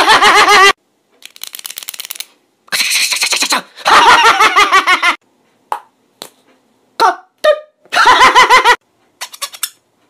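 A man's voice: loud, high-pitched bursts of exaggerated laughter about three times, between them rapid runs of mouth-made clicks and a short hiss, the kind of sounds made when imitating objects by mouth.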